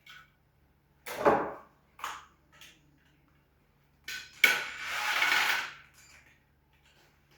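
Handling sounds as a wire is fastened into a DC terminal: a sharp knock about a second in, a few lighter clicks, then another knock followed by a second or so of scraping rustle.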